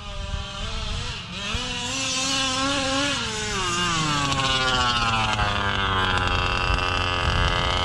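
Two-stroke big-bore engine of a large-scale gas RC car revving: the pitch climbs for a couple of seconds, drops sharply about three seconds in, then holds high and slowly sinks.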